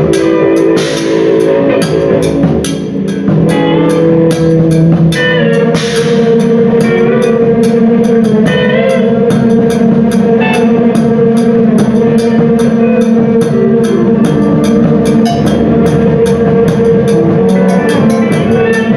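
A live band playing: a drum kit struck fast and evenly, about four hits a second, over long held guitar notes.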